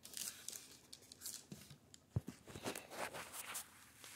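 Packing being handled in a cardboard box: plastic wrap and foam inserts rustling and crinkling in short, irregular bursts, with one sharp knock about two seconds in.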